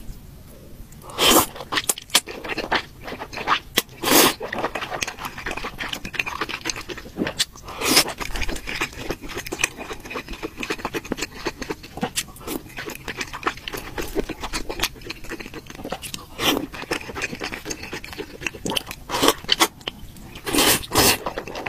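Close-miked eating of noodles in broth: several loud slurps a few seconds apart, with wet chewing and small mouth clicks between them.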